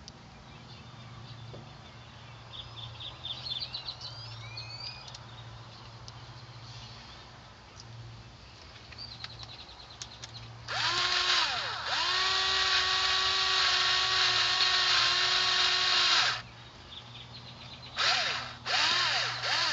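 Power drill driving a screw: its motor spins up about ten seconds in and runs steadily for about five seconds, then gives two short bursts near the end.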